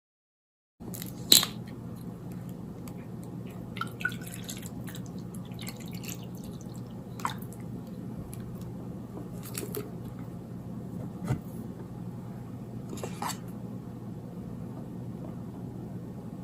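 Close-miked eating sounds from a cinnamon roll: scattered soft sticky squishes and mouth clicks, the sharpest about a second in, over a steady low hum.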